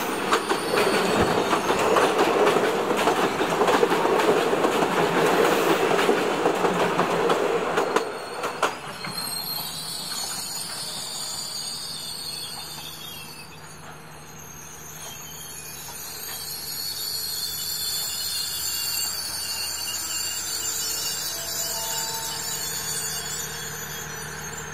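SRT THN-class diesel railcar passing close by: engine and wheels loud, with rapid clicks over the rail joints for about eight seconds, then dying away. After that, thin high-pitched squealing tones and a low steady hum.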